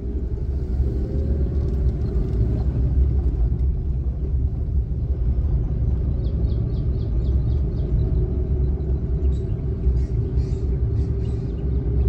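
Car cabin noise while driving: a steady low rumble of tyres and engine on a rough, patched asphalt road.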